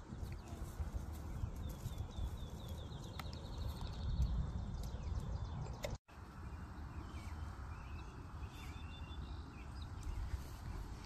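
Outdoor wind buffeting the microphone with an irregular low rumble, while small birds trill and chirp in the background. The sound cuts out briefly about halfway through.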